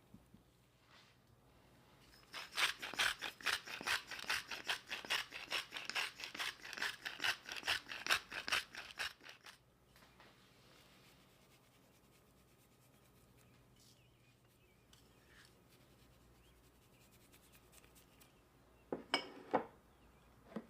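A quick, even run of scraping strokes, about four or five a second, lasting some seven seconds, then two short scrapes near the end: kitchen prep work.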